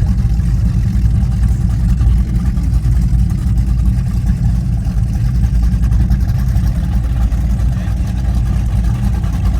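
Steady, deep rumble of high-performance powerboat engines running at low speed.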